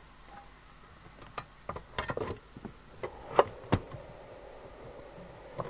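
Metal top cover being fitted onto a CB radio's case: a run of sharp clicks and knocks, the two loudest about three and a half seconds in, and one more near the end.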